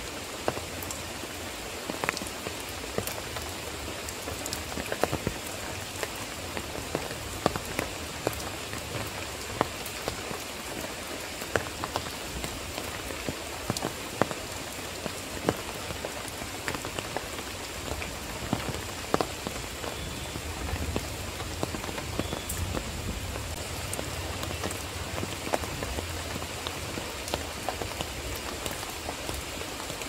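Steady rain falling, an even hiss with frequent sharp drops striking close by at irregular moments.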